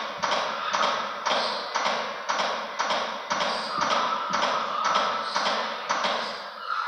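Chest compressions on a CPR training manikin: a sharp, regular tap about twice a second as the manikin's chest is pushed down and released, stopping near the end when the set of compressions ends.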